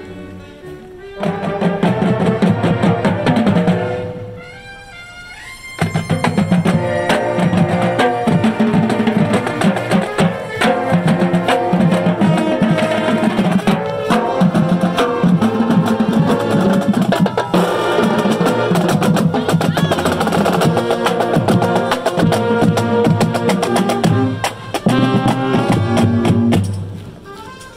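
Marching drumline of snare drums, tenor drums, bass drums and cymbals playing a loud, fast rhythmic passage together. It starts about a second in, drops out briefly around four seconds, comes back in near six seconds, and stops just before the end.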